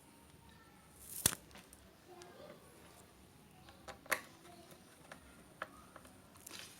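Scattered small clicks and taps of a screwdriver and screws on a laptop's plastic case, with two sharper clicks about a second in and about four seconds in.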